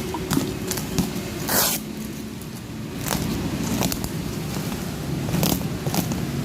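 Cardboard box and packaging being handled during unboxing: scattered clicks and scrapes, with one longer scrape about a second and a half in, over a steady low background rumble.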